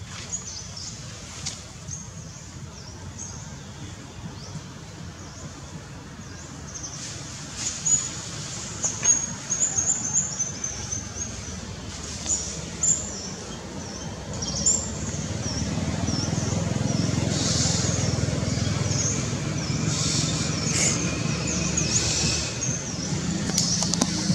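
Small birds chirping, many short high calls in quick irregular runs, starting about a quarter of the way in. Under them runs a low rumble that grows louder past the middle.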